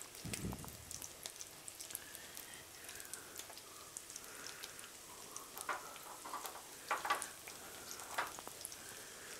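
Turbot fillet with a potato-scale crust frying gently in butter in a pan: a faint steady sizzle with scattered small pops and crackles, a few louder clusters of crackling near the second half, and a soft low bump about half a second in.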